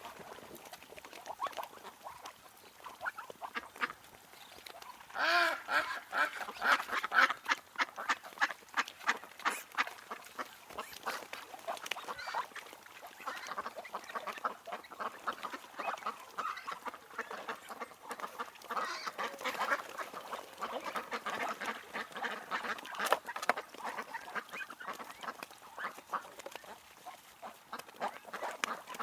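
A flock of ducks and drakes quacking continuously, many short overlapping calls, with a loud burst of rapid quacking about five seconds in and another flurry near the two-thirds mark.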